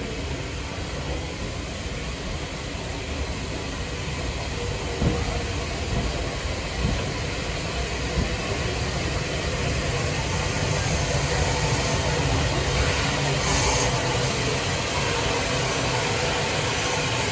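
Bulleid West Country class steam locomotive 34092 and its tender running past along a station platform: a steady rumble and hiss, with a few clicks from the wheels over the rail joints a few seconds in.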